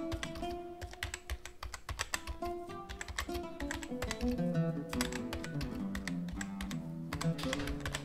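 Typing sound effect: many rapid, irregular key clicks as text is typed out, over background music with a simple stepping melody.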